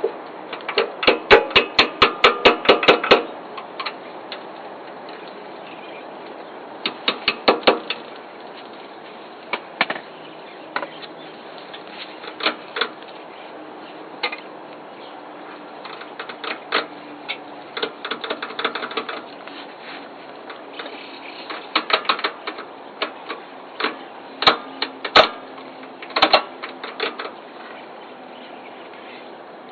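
Sharp metallic clicks and taps from hand work on a Kubota B5000 tractor's gear shift lever and its gearbox housing: a quick run of about five taps a second near the start, a shorter run a few seconds later, then scattered single and paired taps.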